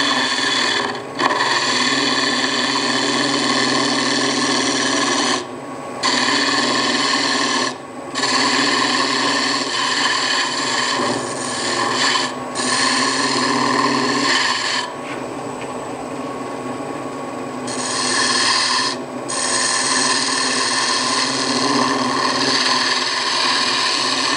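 Negative rake scraper cutting a spinning big leaf maple bell on a wood lathe: a steady scraping hiss of the cut. It breaks off briefly about four times and goes quieter for a couple of seconds in the middle.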